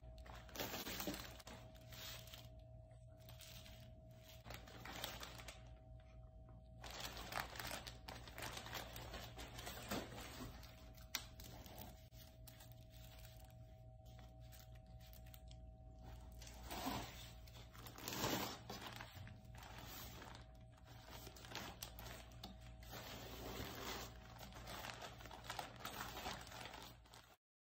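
Plastic packaging crinkling and rustling in irregular bursts as plastic-bagged clothes and air-cushion packing are handled in a cardboard box, over a faint steady hum. It cuts off suddenly near the end.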